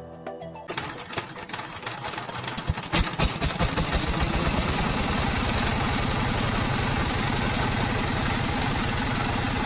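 SIFANG S195 single-cylinder diesel engine on a power tiller, freshly fitted with a new cylinder liner, piston and rings, running. The beat is uneven at first and settles into a steady, rapid chugging from about three seconds in.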